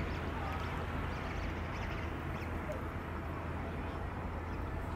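Steady outdoor ambience: a low wind rumble on the microphone under a constant hiss, with a few faint bird chirps.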